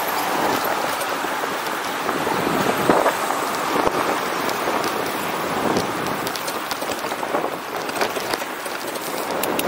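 Steady rushing noise of a bicycle ride through city streets, with traffic and scattered light clicks and rattles.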